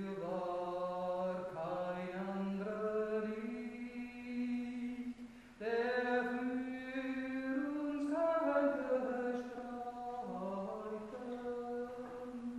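A woman singing a Marian hymn solo and unaccompanied in a church, in long held notes that step slowly up and down, with a short break about five seconds in.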